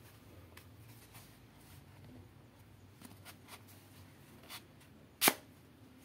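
Homemade EVA-foam and cardboard card deck and Dragvisor Zwei prop being handled: a few soft taps and clicks as the deck is fitted into the visor, then one sharp, loud click about five seconds in as it goes in.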